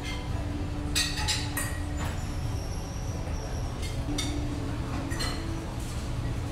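Metal serving ladle clinking against a ceramic condiment pot and a china plate a few times while dressing is spooned out, over a steady low hum of room noise.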